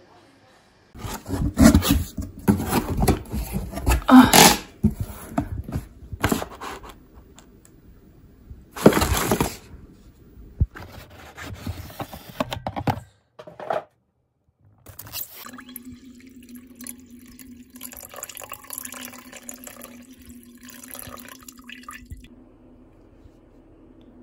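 Water splashing and running in several loud, irregular bursts, followed by a steady low hum with faint rustling for several seconds.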